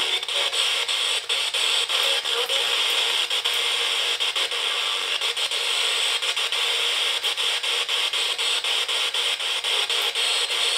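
FM radio module of a homemade spirit box sweeping continuously through the FM band: a steady hiss of static broken by short regular clicks several times a second as it jumps from frequency to frequency.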